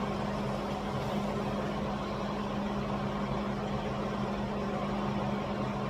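Steady background machine hum with a constant low tone and an even hiss, unchanging throughout.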